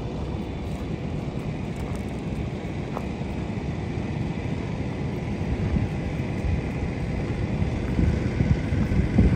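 Low, uneven rumble of wind buffeting the microphone, gusting louder near the end.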